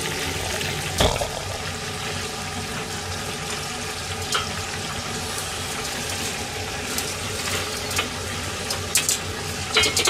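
Food deep-frying in hot oil: a steady sizzle, with a few sharp clicks of utensils, the loudest about a second in.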